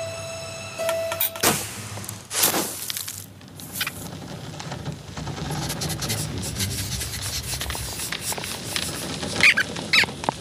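Animated-film sound effects: two quick whooshes about a second and a half and two and a half seconds in, then steady rustling, and two short high squeaks near the end.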